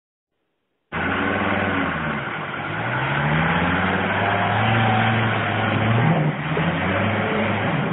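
ARO off-road vehicle's engine working hard as it climbs a steep forest track, its revs rising and falling. The sound starts suddenly about a second in.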